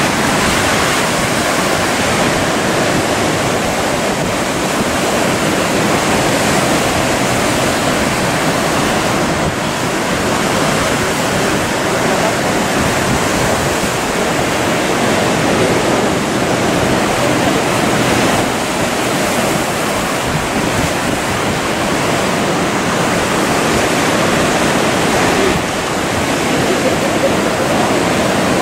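Ocean surf breaking: a steady, unbroken roar of rushing white water.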